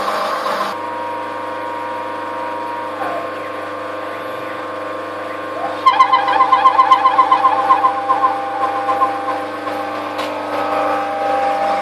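A CNC-converted lathe threading PVC pipe, its stepper motors whining steadily over the running spindle. The whine drops in pitch about three seconds in and rises again near six seconds. Then comes a louder few seconds of rapid, evenly pulsing whine as the axes move through the threading passes.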